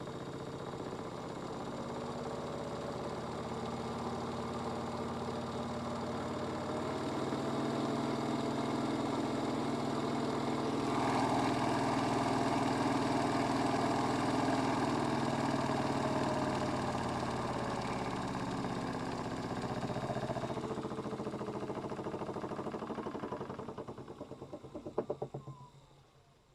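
Modified Miele W1 toy washing machine spinning an unbalanced load: its small motor runs steadily and gets louder about a third of the way in, then winds down near the end with a burst of rapid knocking as the off-balance drum slows and stops.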